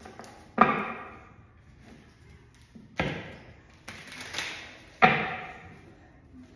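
Tarot cards smacked down on a table: three sharp slaps about two seconds apart, with softer taps between them.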